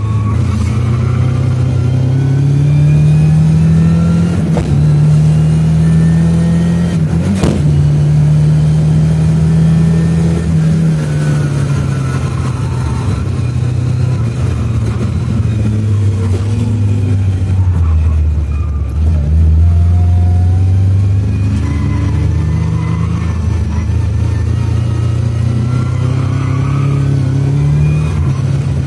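Lada 2107 with a 2.0-litre Fiat engine heard from inside the cabin while lapping a circuit. The engine note climbs, holds and drops again several times as the car accelerates and lifts for corners, and is lowest about two-thirds of the way through. A single sharp knock comes about seven and a half seconds in.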